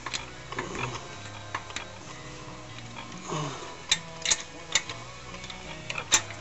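Wrench clicking and clinking against the muffler nuts and flange of a 66cc bicycle engine as they are tightened, with sharp metal clicks in quick succession in the second half.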